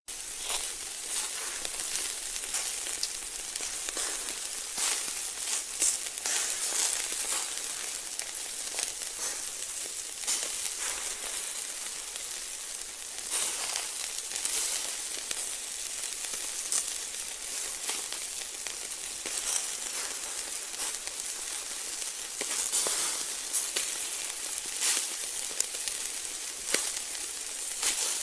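Food sizzling in hot oil in a pan: a steady high-pitched hiss dotted with frequent quick pops and crackles.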